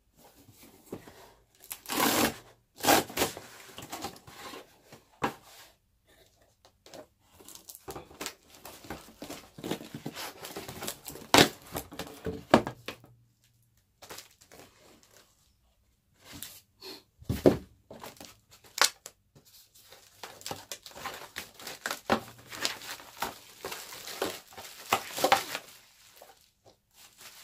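Unboxing: a cardboard shipping box is opened and the plastic-wrapped packaging inside is handled and torn open. The sound is crinkling, tearing and rustling in irregular bursts, with sharp snaps and a few short pauses.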